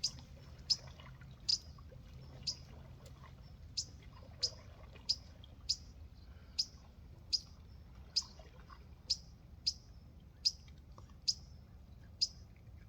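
A bird chirping over and over: short, sharp, high chirps that slide downward, about one a second and a little irregular.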